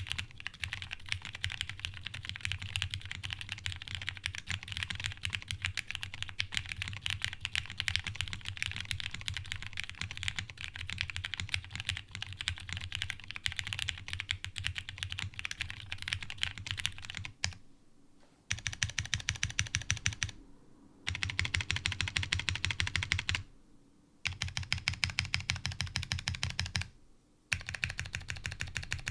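Fast typing on a custom 60% mechanical keyboard with lubed Cherry Hyperglide Brown tactile switches, an FR4 half plate, an O-ring tray mount and CRP keycaps: a steady, dense clatter of keystrokes. In the second half the typing stops briefly four times.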